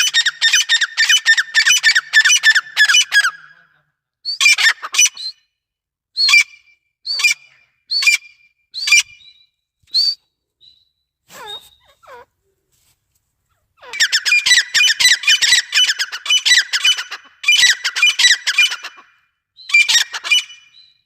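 Grey francolin (desi teetar) calling: loud runs of rapid, harsh, squeaky notes. A long rapid series opens, a handful of shorter separate calls follow, and after a pause two more rapid series come near the end.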